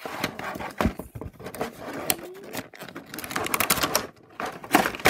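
Clear plastic toy packaging crinkling and crackling as it is handled and opened, with many quick irregular clicks.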